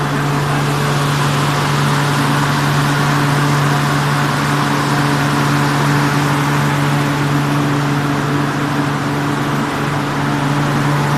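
Dairy-barn misting cooling fans running: a steady low hum over a broad rush of air.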